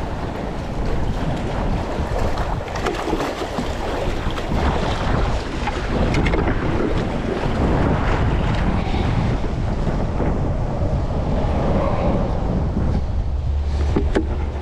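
Wind buffeting the microphone over the steady wash of water, with a few short knocks scattered through.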